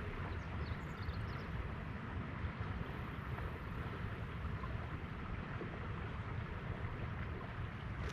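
Steady wind buffeting the microphone, with a low fluttering rumble over the hiss of flowing river water.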